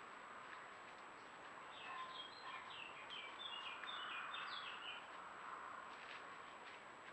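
A small songbird singing one short phrase of quick, clipped notes, starting about two seconds in and lasting about three seconds, faint over a steady hiss and a thin high whine from the trail camera's recording.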